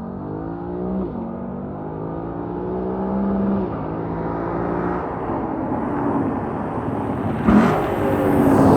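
Lexus LC 500's naturally aspirated V8 through a Power Craft Japan mid-pipe exhaust, accelerating hard. The engine pitch climbs, drops back at each upshift about a second in and again near the middle, then climbs again. Near the end there is a short sharp crack as the pitch falls and rises once more.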